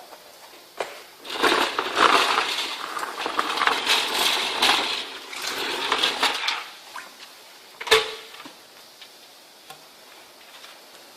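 Small hard objects, likely screws, clattering and clinking for about five seconds, then one sharp knock about eight seconds in.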